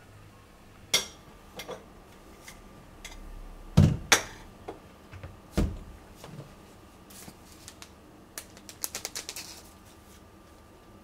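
Kitchen items being handled on a counter: scattered knocks and clinks, with two heavy thuds just before and just after four seconds and another at about five and a half seconds, then a quick run of light ticks near the end.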